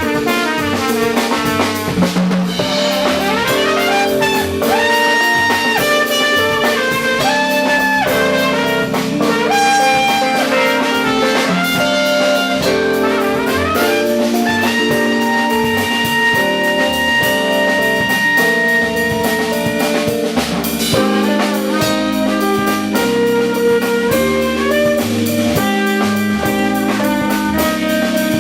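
Jazz band playing: a trumpet soloing in held and gliding notes over drum kit, keyboard with left-hand bass, and guitar.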